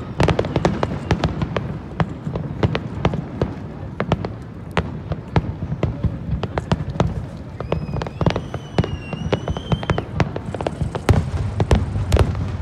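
Fireworks finale barrage: a rapid string of sharp shell bursts and crackling, several reports a second, over a continuous low rumble. A high whistle rises slightly and holds for about two seconds, starting around eight seconds in.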